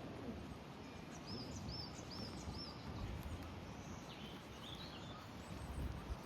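A small bird singing a run of four identical high, quick chirps, then a few fainter high calls a couple of seconds later, over steady low background noise.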